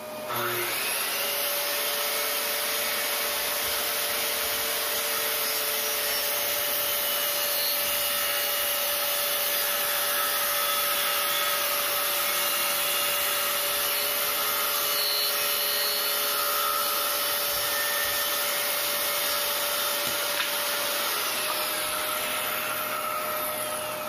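SKIL corded circular saw running through a cut in a wooden board, with a vacuum hose on its dust port drawing off the sawdust. About three seconds before the end the saw's whine falls in pitch as the blade winds down after the cut, while the vacuum keeps running.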